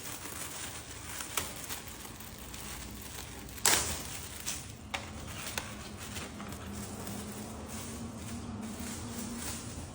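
Hands handling a car's engine air filter and its plastic airbox: scattered clicks, rustles and light knocks, with one sharper knock a little under four seconds in.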